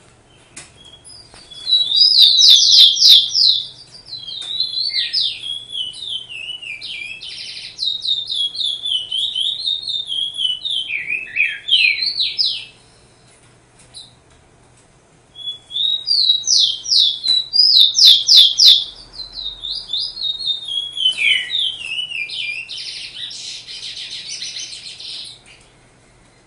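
A songbird singing two long, varied song phrases of about ten seconds each, with a short pause between them. Each phrase opens with loud rapid trills and runs on in quicker, changing notes.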